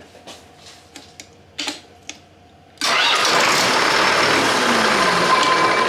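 Irrigation well pump's engine starting with a sudden loud catch about three seconds in, then running loud and steady. A few light clicks come before it.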